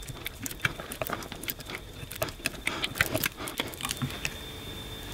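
Small metal clicks and taps as a steel nut is turned down a bolt on a carbon-fibre plate by gloved fingers and an adjustable wrench is fitted to it; the clicks come irregularly and thin out about four seconds in, when a faint steady high whine comes in.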